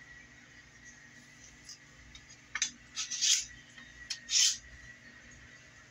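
Kitchen knife being sharpened: a few short scraping strokes of the steel blade against a sharpener, starting about two and a half seconds in.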